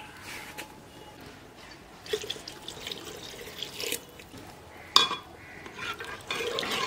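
Water poured from a small steel pot into a clay pot of kadhi, splashing into the liquid. About five seconds in there is one sharp metal clink, and near the end a spoon stirs the pot.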